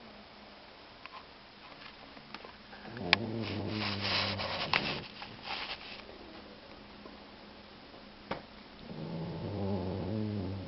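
Boxer mix dog snoring loudly: one long snore about three seconds in and another near the end. A few sharp clicks come in between, the loudest at the start of the first snore.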